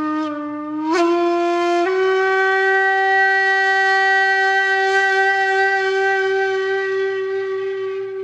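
Solo wind instrument playing a long held note, stepping up in pitch twice in the first two seconds and then sustaining one steady note.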